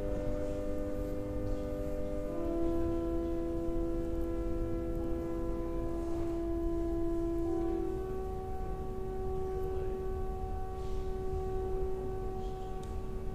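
Church organ playing slow, sustained chords that change about two and a half seconds in and again near the middle. The last chord is held and then stops near the end, closing the piece.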